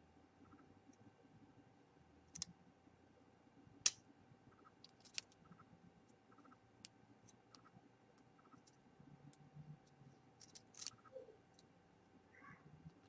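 Faint, scattered clicks and ticks of metal tweezers against a phone's small internal parts as a tiny screw is worked into place, with a few sharper clicks about two and a half, four, five and eleven seconds in.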